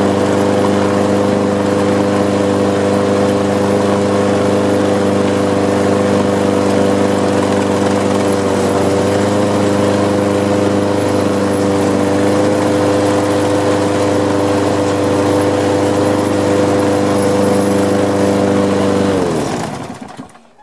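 Walk-behind lawn mower's small single-cylinder engine running steadily at a fixed speed, then dying about nineteen seconds in, its pitch sagging as it stops. This is the stalling fault reported for this mower, which has a bent crankshaft.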